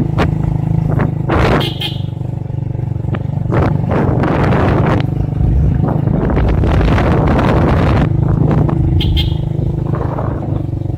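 Motorcycle engine running steadily on the move, with wind noise on the microphone.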